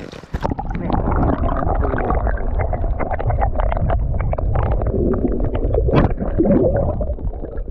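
Shallow stream water gurgling and rushing around a camera held underwater, with many small clicks and knocks. A stronger knock about six seconds in as the released brown trout bumps the lens.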